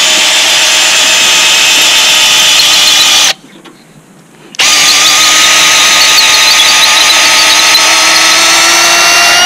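Cordless drill boring a hole through a tree limb for cable hardware, running at a steady pitch. It stops about three seconds in, then starts again a second later and runs steadily to near the end.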